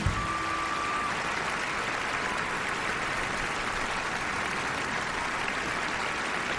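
The band's music cuts off at the start, and a large theatre audience applauds steadily. A short, high held tone sounds in the first second.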